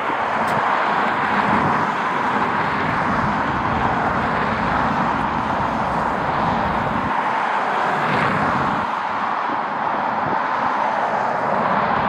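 Jet airliner engines as a steady rushing noise, with gusts of wind buffeting the microphone; the low buffeting eases about seven seconds in.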